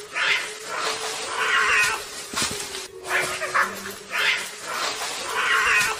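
A cat caterwauling: several drawn-out yowls in a row, over a steady low tone.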